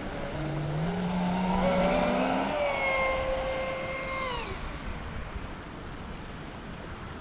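Pro Boat SonicWake RC speedboat's brushless electric motor whining at speed on the water. The pitch climbs over the first couple of seconds, holds steady, then drops and fades a little after four seconds in.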